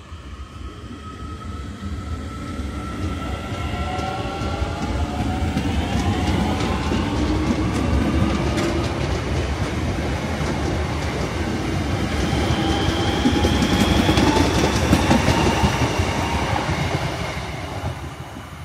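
DART electric multiple unit pulling out of the station: its traction motors whine, rising in pitch as it gathers speed, over the clatter of the wheels on the rails. The sound fades near the end as the train draws away.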